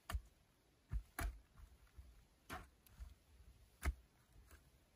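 A shovel blade striking and chopping into a hard-packed earth bank, about half a dozen irregularly spaced strikes, the loudest near the end.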